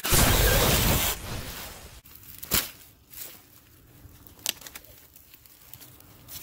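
A loud explosion-like blast with a deep rumble, lasting about a second and fading away over the next, an edited-in blast effect. After it come a few sharp clicks and light rustling in dry brush.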